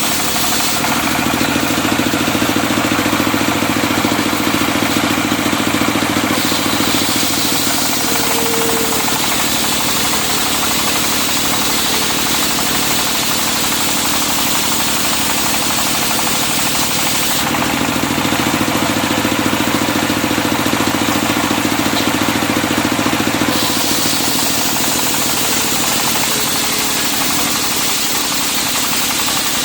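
Engine-driven circular sawmill running steadily while sawing a medang log into beams. Its sound changes twice, for about six seconds each time: once near the start and once just past the middle.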